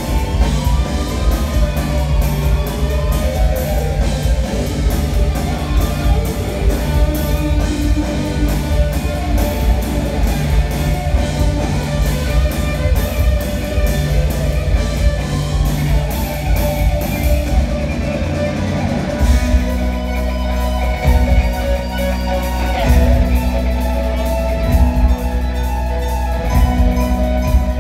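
Live rock band playing: electric guitars over a drum kit with a steady beat. About two-thirds of the way through, the cymbals drop out for a moment, then the band comes back in with a heavier low end.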